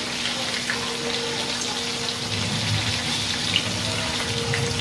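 Tofu cubes frying in hot oil in a pan: a steady sizzle with small crackles and pops as they are turned with a spatula, and one sharper tick about three and a half seconds in.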